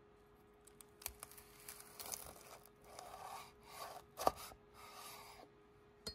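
Chef's knife sawing through a crisp deep-fried spring roll on a wooden cutting board: the fried wrapper crackles and crunches in faint scraping bursts, with one sharper knock about four seconds in.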